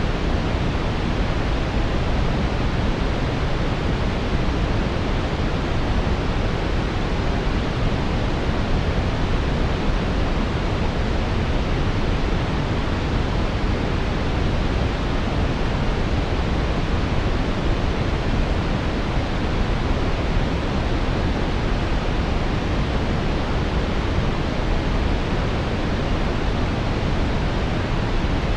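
Steady brown noise: an even, deep rushing hiss, strongest in the low end, with no changes or events.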